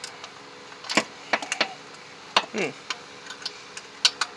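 Irregular metal clicks and clinks of a ratchet, wobble extension and socket being worked against a starter bolt deep in the engine bay, the socket not staying on the bolt.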